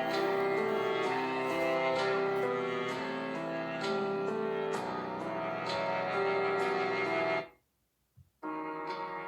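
Music with held keyboard chords and a light, regular ticking beat, played back through a smartphone speaker. It drops out to near silence for about a second near the end, then starts again.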